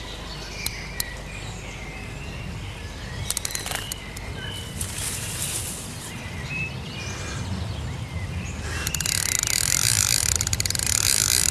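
Fishing reel's drag clicking rapidly as a hooked carp pulls line off against it: a short burst a few seconds in, then a longer, louder run over the last few seconds.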